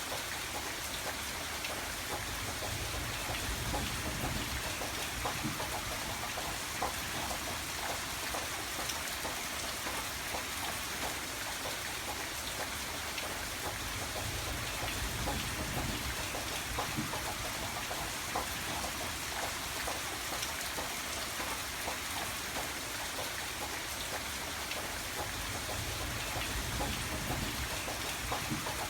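Steady rainfall, with many individual drops pattering on surfaces and a soft low rumble underneath.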